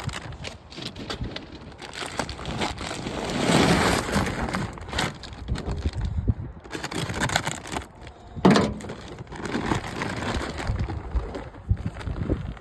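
Rustling and crackling as a 50-pound plastic bag of deer corn is handled, with irregular clicks and knocks and a couple of louder rustles.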